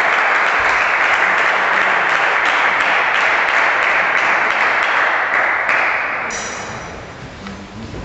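Spectators clapping in applause for a point, the clapping dying away about six to seven seconds in.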